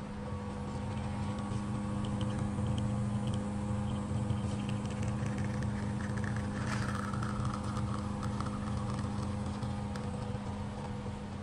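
Commercial espresso machine's pump humming steadily while a shot is pulled, coming on at the start, with espresso streaming into a ceramic cup.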